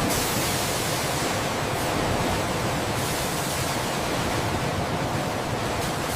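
A steady, even rushing noise at a constant level that cuts in and out abruptly.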